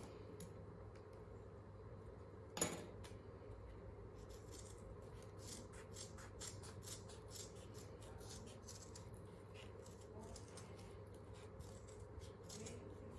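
Scissors snipping through a sheet of 2 mm felt: a run of faint, short cuts, with one sharper knock about two and a half seconds in.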